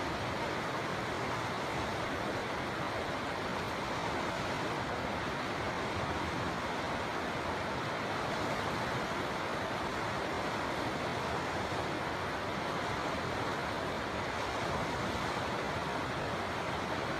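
River water flowing, a steady unbroken rush with no change in level.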